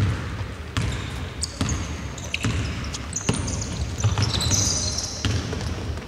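A basketball being dribbled on a gym court, a bounce about every 0.8 seconds, with high, short sneaker squeaks in the middle.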